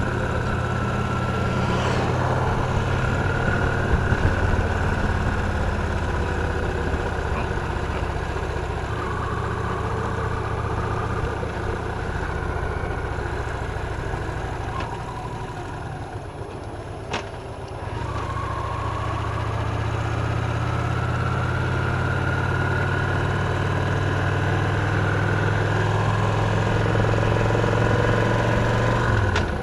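Victory Cross Roads Classic LE's 1700 cc V-twin engine running on the road. It eases off and quietens about halfway, with a sharp click, then pulls again with a rising pitch before dropping suddenly near the end.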